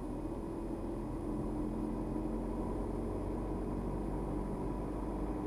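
Steady engine and tyre noise of a car driving along, heard from inside the cabin.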